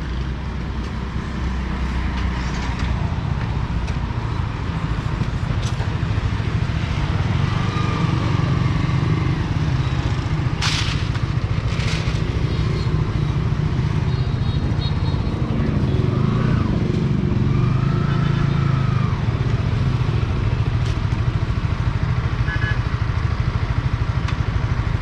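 Motorcycle engine running steadily, with two sharp clicks about halfway through.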